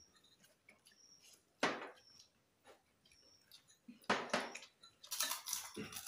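Tableware clinking and knocking during a meal: ceramic plates and metal serving spoons tapped and set down, a few separate sharp knocks with short high-pitched rings.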